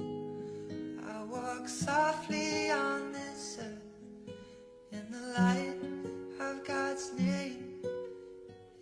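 Gentle acoustic guitar music, plucked and strummed, with a soft melody line over sustained low notes.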